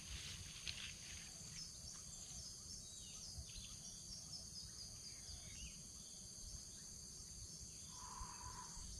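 Faint plantation ambience: a steady, high-pitched insect drone with scattered small bird chirps over a low rumble, and a short bird call near the end.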